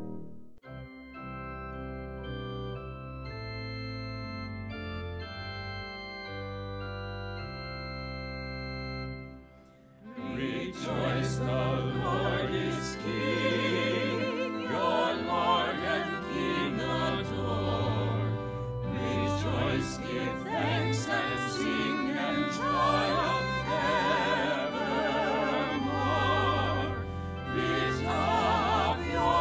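Church music: about ten seconds of slow, sustained organ chords, then, after a short dip, singing with vibrato over organ and instrumental accompaniment, the entrance hymn of a Mass.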